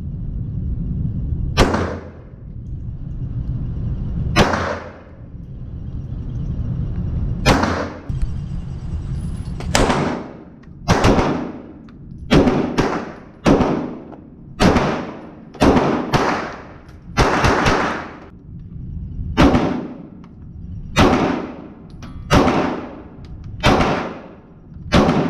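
Handgun shots, about seventeen in all: the first few several seconds apart, then a steady string of roughly one a second, each shot trailing off in a short echo. A low rumble sits under the first few shots.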